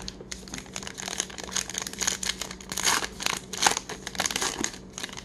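A 2021 Topps Heritage trading-card pack wrapper being torn open and crinkled by hand: an irregular run of crackles and rips, loudest about three seconds in.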